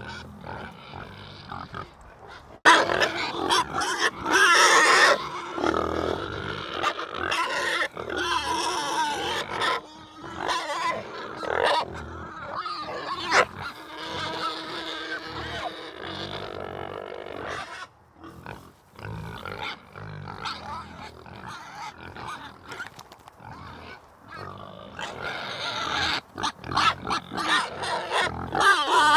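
Animal calls, irregular and repeated, loudest a few seconds in and again near the end, with a quieter stretch in the middle.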